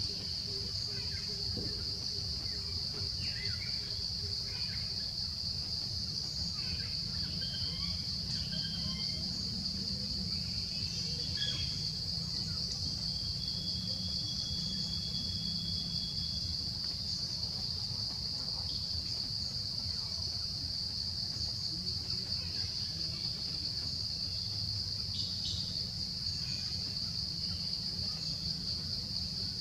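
Insects droning steadily on one high pitch, with a few short chirps over it in the first half.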